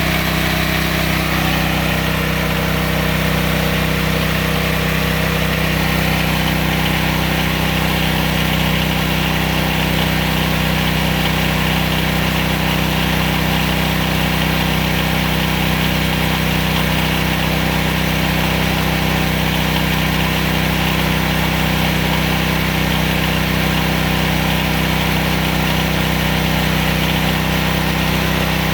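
14 hp 420cc single-cylinder engine of a homemade bandsaw sawmill running steadily at constant speed, driving the band blade.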